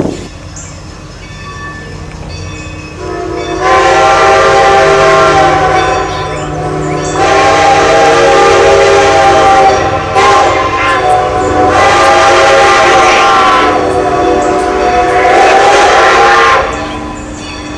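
Chime steam whistle of Strasburg Rail Road No. 90, a 2-10-0 steam locomotive, blowing a series of long, loud blasts with short breaks between them as the train approaches.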